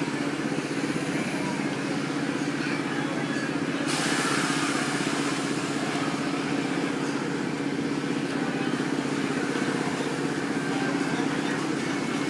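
Steady motor hum of a fairground boat ride, with a rushing hiss that grows louder about four seconds in.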